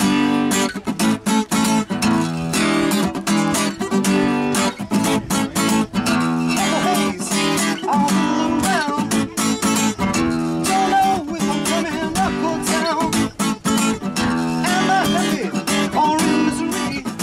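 Acoustic guitar strummed in a steady rhythm, with a man singing along from about six seconds in.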